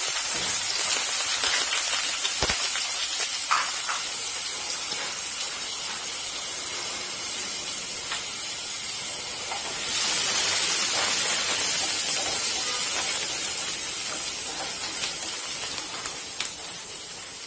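Minced garlic sizzling in hot oil in a non-stick frying pan: a steady hiss that grows louder about ten seconds in. Near the end a wooden spatula stirs it, adding a few light clicks.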